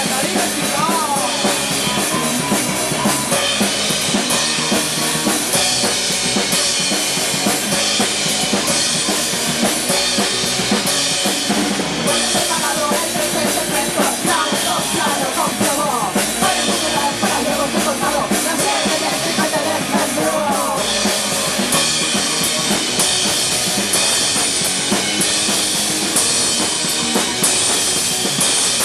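Punk rock band playing a song in rehearsal, the drum kit's bass drum and snare prominent in a dense, loud, continuous band sound.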